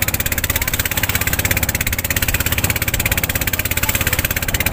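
Engine of a small wooden fishing boat running steadily under way: a fast, even putter of about twenty beats a second.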